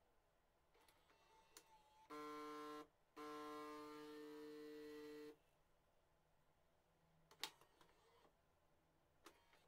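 Philips 5400 automatic coffee machine's pump running in two steady humming stretches, a short one about two seconds in and a longer one of about two seconds right after, as it dispenses coffee into the glass. A few sharp clicks follow near the end.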